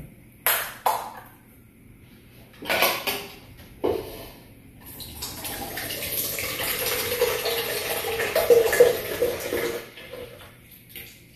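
A few separate knocks and clatters of dishes, then water running for about five seconds, growing louder before it stops.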